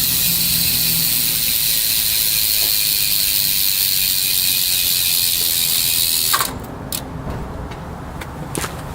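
A steady, loud hiss that cuts off suddenly about six seconds in, followed by scattered, irregular clicks and light knocks.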